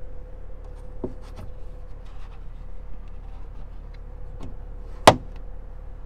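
A few light clicks, then one sharp click about five seconds in, over a faint steady hum.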